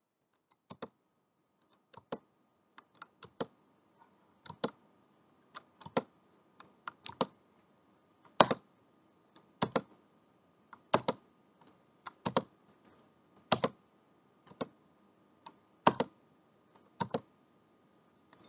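Computer keyboard keys tapped in short, sharp clicks at uneven intervals, often in quick pairs or threes, about one or two a second.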